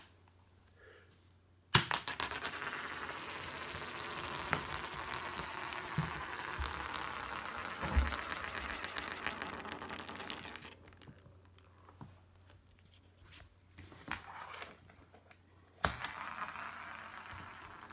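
A lipstick tube flicked at its end so that it spins on a wooden floor: a sharp click, then a fast whirring rattle that lasts about nine seconds and dies away as the spin slows. A few faint taps follow, then a second flick near the end sets it rattling again.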